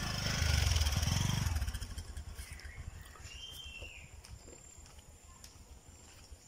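A motor vehicle's engine, loud at first and fading away over the first second and a half, then footsteps on a dirt path.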